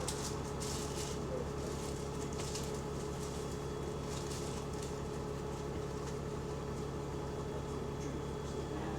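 Bus engine running steadily, a low even drone with light rattles over it, heard from on board a bus that has an exhaust leak.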